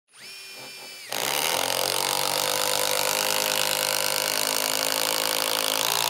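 Metabo HPT 36V MultiVolt Triple Hammer impact driver running: a quieter high whine for about a second, then it suddenly turns much louder and runs steadily, hammering as it drives under load.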